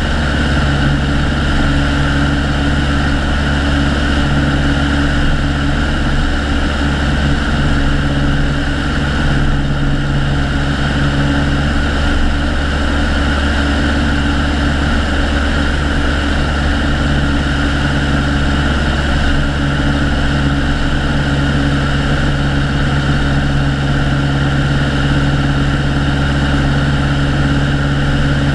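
Piper Colt's four-cylinder Lycoming O-235 engine and propeller running steadily in flight, a constant loud drone heard from outside the cabin.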